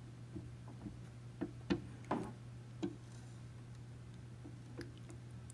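Scattered faint ticks and light taps of a hot plastic-welding tool's tip working softened plastic, over a steady low hum.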